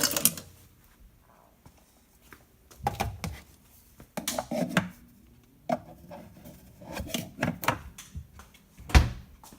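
A block of ice in a cup being struck and broken apart: clusters of sharp knocks and scrapes with pauses between them. A heavy thump near the end is the loudest.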